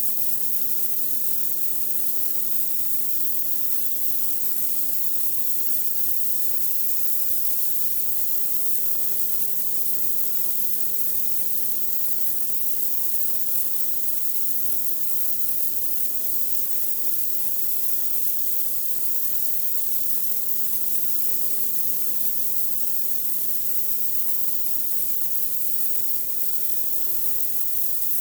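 Pressure washer running steadily while spraying a driveway: a steady hiss of high-pressure water over an even hum from the machine's motor and pump.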